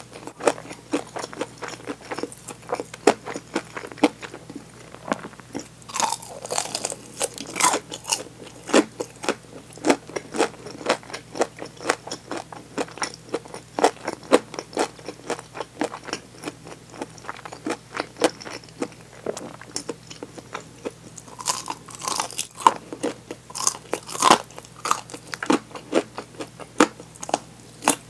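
Crunching bites and chewing of deep-fried chicken drumsticks in crisp batter, picked up close to the mouth by a clip-on microphone. A steady run of crunches, with two louder clusters of crunching about six seconds in and again about twenty-one seconds in.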